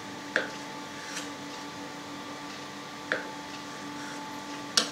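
Kitchen knife slicing through a small soft mould-ripened cheese, the blade making a few short sharp ticks against the cutting board: one about a third of a second in, one around three seconds in, and a louder double tick near the end, over a steady faint hum.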